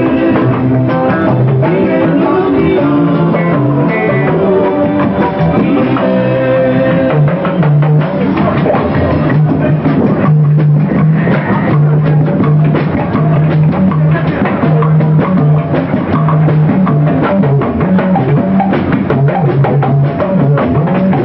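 Live band playing: electric guitars over a repeating bass guitar line and a drum kit, with a man singing at the microphone. The drumming grows busier about seven seconds in.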